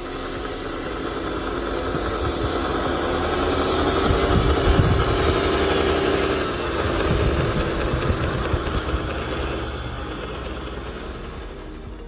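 Large wheel loader's diesel engine running hard under load as it lifts a heavy stone block, with a steady whine over the engine noise. The sound swells to its loudest around the middle, then eases off.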